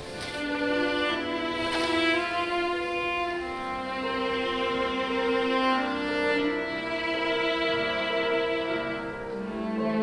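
Cello playing slow, sustained notes with vibrato, the pitch moving to a new note every few seconds.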